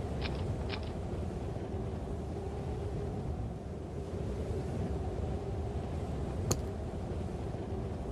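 A steady low rumbling drone with a faint held hum, like a dark ambient sound-effect bed, with a single sharp click about six and a half seconds in.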